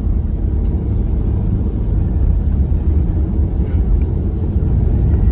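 Road noise heard from inside a moving car: a steady low rumble of tyres and engine.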